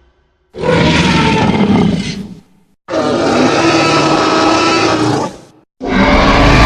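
Fan-made Tyrannosaurus rex roar sound effect, assembled from film dinosaur sounds: three loud roars, each two to three seconds long, with short silent gaps between them. The third roar is still going at the end.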